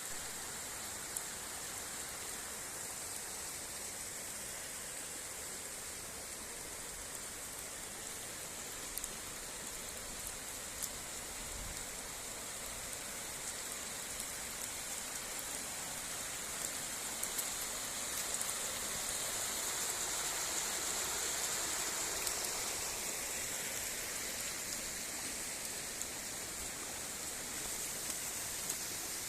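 Water gushing steadily out of fissures in a limestone mountainside and falling as a waterfall, a continuous rushing that swells a little past the middle: the mountain's rock is full after heavy rain and overflowing through its cracks.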